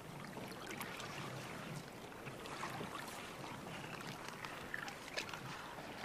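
Faint water sloshing and splashing with soft irregular ticks, from lions feeding on a carcass while standing in shallow water.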